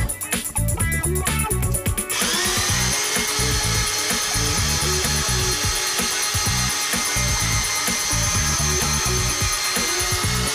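Moulinex Fresh Express electric grater shredding courgettes, its motor starting up about two seconds in with a rising hum, then running steadily at one pitch.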